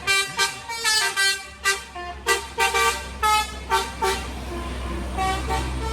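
Bus telolet 'basuri' musical horn playing a quick tune of short notes, a few a second, for about four seconds. After that the bus's engine runs with a steady low rumble.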